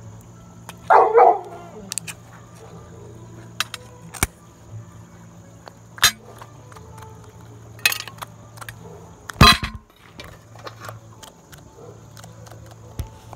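A pitbull barks once, about a second in. Then a rectangular aluminium sardine tin with a ring-pull lid is peeled open and handled, giving a string of sharp metallic clicks and clinks, with one loud snap about two-thirds of the way through.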